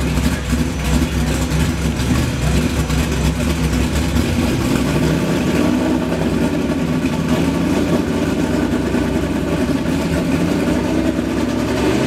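Engine of an 800 hp desert trophy truck running loud and steady. About five seconds in its pitch steps up and holds higher.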